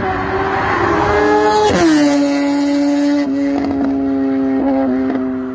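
Kawasaki Ninja ZX-10R's inline-four with an Austin Racing exhaust passing by at speed: the engine note climbs as it approaches, drops sharply in pitch about two seconds in as it goes past, then holds a steady lower note while fading slightly as it moves away.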